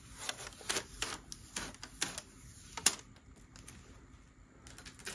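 Thin plastic protective film crackling in a run of small clicks as it is peeled off a motherboard's rear I/O cover and handled, with one sharper click about three seconds in. After that only faint ticks of handling remain.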